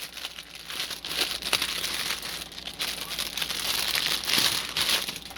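Plastic crinkling and crackling as small bags of diamond painting drills are handled, a dense, irregular run of rustles and sharp crackles.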